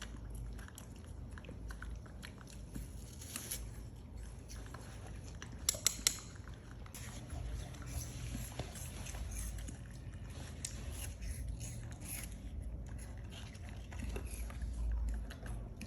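Scattered light clicks and taps over a low steady hum, with a brief cluster of sharper, louder clicks about six seconds in.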